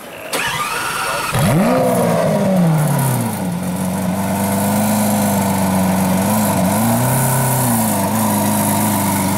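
2015 Lamborghini Aventador Roadster's V12 starting through a FapSpeed aftermarket exhaust. It turns over and catches with a loud flare of revs that rises and falls away, then settles into a steady idle, with a slight wobble in the revs about seven seconds in.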